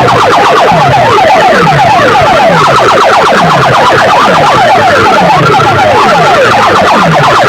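Loud electronic siren-like effect blasted through a large DJ sound-box system: rapid falling chirps over a falling bass tone that repeats about twice a second.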